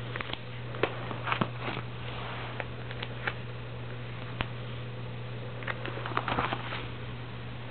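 Scrapbook album pages being turned by hand: scattered light crackles and taps of the paper and page sleeves, with a quick cluster of them about six seconds in, over a steady low hum.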